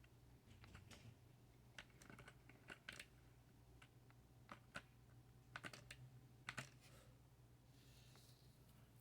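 Faint irregular clicks, some in quick pairs, over a steady low hum that fits the Harbor Breeze Tebron ceiling fan's motor running.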